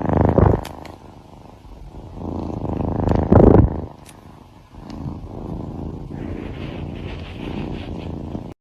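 A cat purring close to the microphone, a rough low rumble that swells loudly twice, then runs on more steadily until it cuts off.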